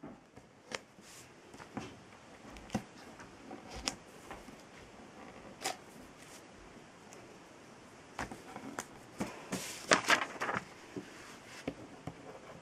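Sheets of paper being handled on a wooden desk by hand: scattered light taps and clicks, with a longer, louder rustle of paper about ten seconds in.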